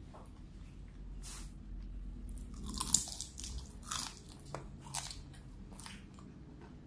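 Crisp fried food crunching as it is bitten and chewed close to the microphone: about five or six separate crunches, the loudest about three seconds in.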